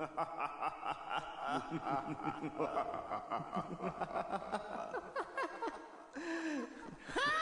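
Intro of a hip-hop track: a sample of many overlapping voices laughing and chattering, with no beat yet. From about five seconds in, a few sliding, wailing calls rise and fall over it.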